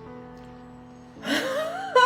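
Background music with steady held notes. About halfway through, a loud voice with a wavering, bending pitch comes in over it.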